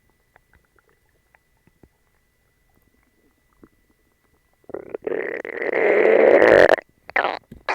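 A person's stomach growling. After about four and a half seconds of near quiet with faint ticks comes one loud growl of about two seconds, followed by a few short growls near the end. It is an upset stomach, a bellyache from eating dog treats.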